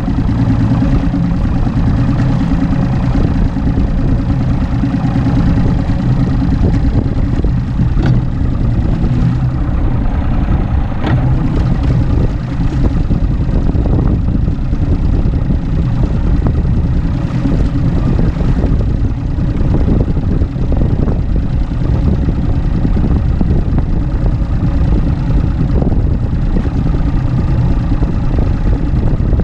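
Mercury Optimax 200 HP two-stroke V6 outboard idling steadily.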